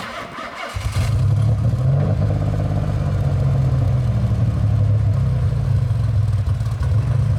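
Nissan 300ZX twin-turbo V6 running steadily through its aftermarket exhaust, a deep, even rumble that comes in suddenly under a second in.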